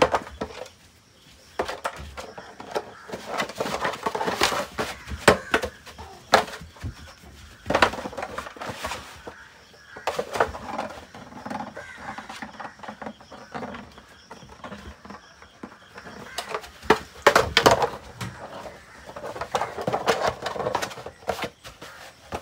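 A puppy playing with a hollow plastic ball on artificial turf: irregular knocks and scuffles as it bites, paws and pushes the ball around.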